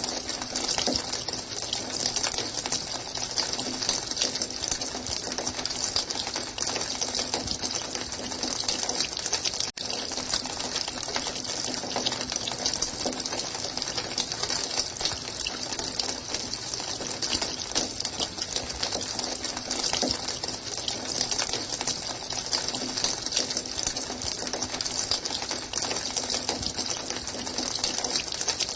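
Running water flowing and splashing steadily, a hissy rush with a faint low hum under it. It drops out for an instant about ten seconds in.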